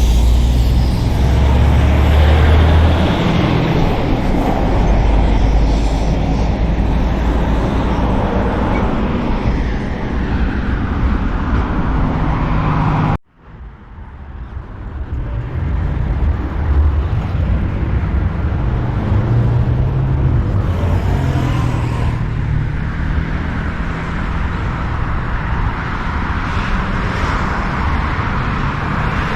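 Steady outdoor road-traffic noise with a low rumble. It cuts out abruptly for a moment about thirteen seconds in, then resumes.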